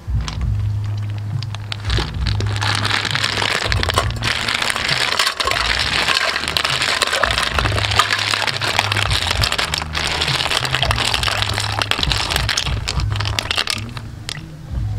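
River snail shells clattering against one another and splashing as they are tipped from a woven basket into a steel pot of water: a dense crackling clatter from about two seconds in until near the end. Background music runs underneath.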